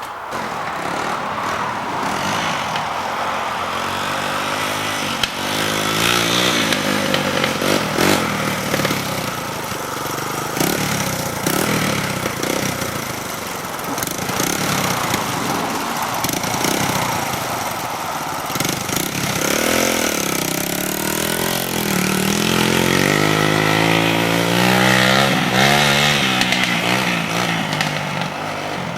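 A motor vehicle engine running, its pitch repeatedly rising and falling as it is revved.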